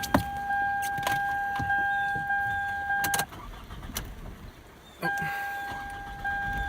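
A car's steady electronic warning tone sounds, cuts off about three seconds in and comes back about two seconds later, with a few sharp clicks, as a 2005 Toyota Camry is being started.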